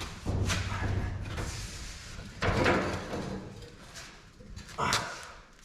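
Knocks and scraping of a heavy metal tank being shifted on jacks, with a loud bang about two and a half seconds in and another shorter one near the end.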